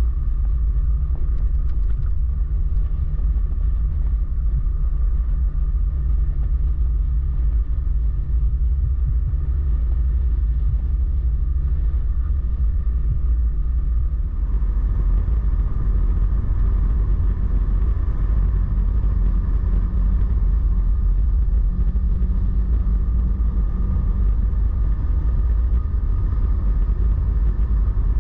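Motorcycle engine running steadily under way, with heavy wind rumble on the microphone. About halfway through, the engine note rises and the wind noise grows.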